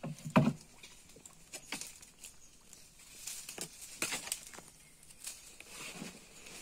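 Two sharp knocks against a small wooden boat near the start, then scattered light clicks and rustles as fishing line is handled among branches.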